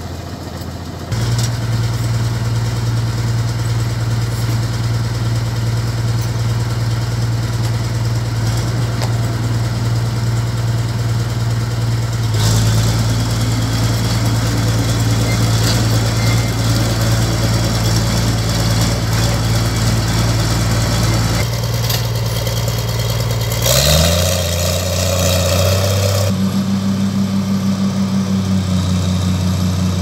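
Crawler bulldozer's diesel engine running steadily, then rising in pitch as it revs up about three-quarters of the way through and holding at the higher speed.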